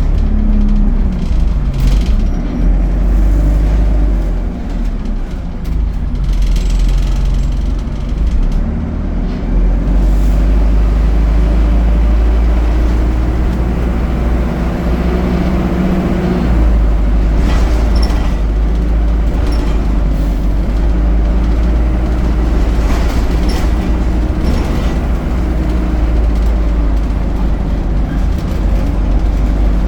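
ADL Enviro 200 single-deck bus with an Allison automatic gearbox on the move, its engine note falling and rising as it slows and pulls away, over a heavy low rumble. Short knocks and rattles come through in the second half.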